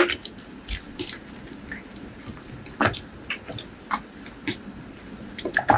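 Close-up mouth sounds of someone chewing braised pork leg curry with rice: wet smacks and clicks at irregular intervals, the loudest about three seconds in.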